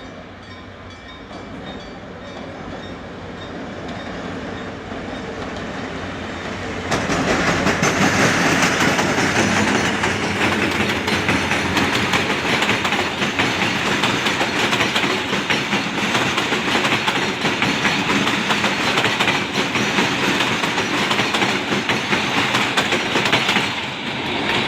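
Express passenger train approaching, its sound swelling slowly, then passing close by from about seven seconds in with a loud, steady rush and clatter of wheels on rails that drops away shortly before the end.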